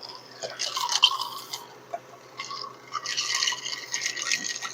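Eating sounds close to the microphone: two spells of wet, crackly noise, the first about half a second in and a longer one from about three seconds in.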